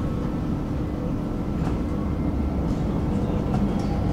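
Tram running along its rails: a steady low rumble with a constant hum and a few faint clicks from the wheels.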